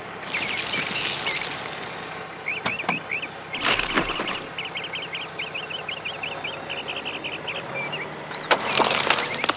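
Stones clattering as a toy excavator's bucket scrapes and scoops gravel, in bursts about four seconds in and near the end. Birds chirp rapidly over a steady outdoor background in between.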